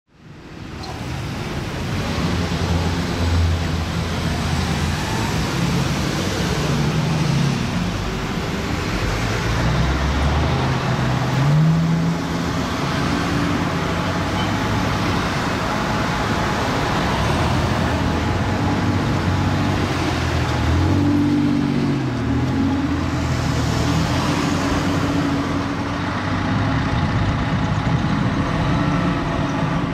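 A fire ladder truck's Detroit Diesel engine idling, its pitch shifting up and down a little.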